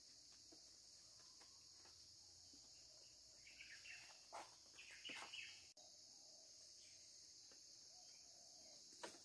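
Steady high drone of forest insects such as crickets, with a few short chirps and rustles around the middle and a single sharp click near the end.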